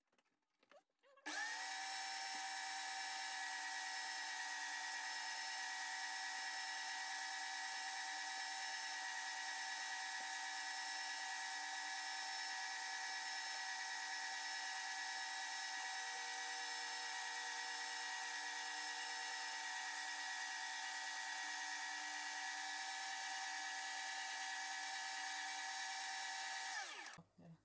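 Electric meat grinder with a sausage-stuffing tube running under load as filling is pushed through into the casing. The motor spins up about a second in, holds a steady pitch, and winds down just before the end.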